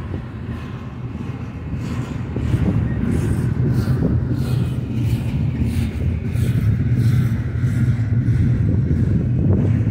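Double-stack intermodal well cars of a freight train rolling slowly past: a steady low rumble of steel wheels on the rail with faint scraping, a little louder from about two and a half seconds in.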